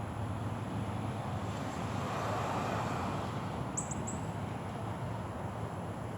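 Steady hum of distant road traffic that swells for a moment as a vehicle passes, with a few faint, brief high bird chirps about four seconds in.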